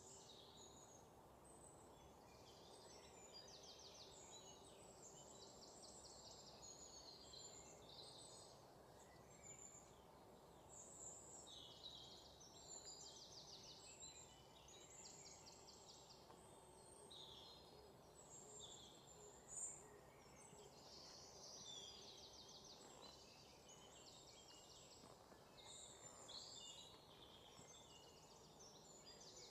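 Faint outdoor ambience of many birds chirping and trilling over a low steady background hiss, with one sharper short chirp about two-thirds of the way through.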